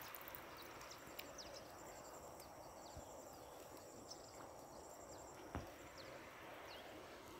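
Faint open-air ambience with a high, pulsed insect trill that stops about five and a half seconds in. A few short falling chirps and one soft knock are heard over it.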